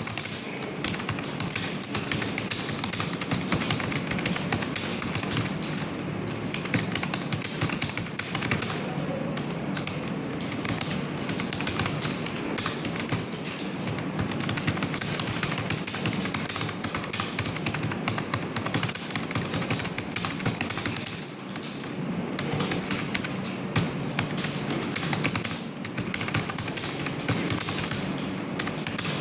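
Fast, continuous typing on a computer keyboard, a dense run of key clicks with a couple of brief pauses in the second half.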